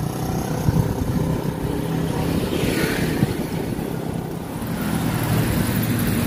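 Wind and road noise from riding a bicycle along a paved road, a steady rumble, with a motor vehicle passing about three seconds in.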